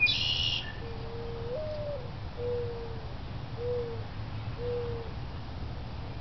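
A dove cooing: a longer first coo that steps up in pitch and drops, followed by three shorter, evenly spaced coos. Right at the start, another bird gives a brief harsh, buzzy call.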